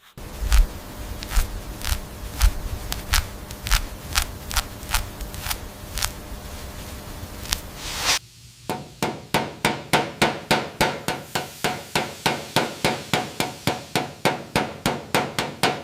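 Repeated hammering: spaced blows about one and a half a second over a low rumble, then after a sudden cut a fast, even run of about five light strikes a second.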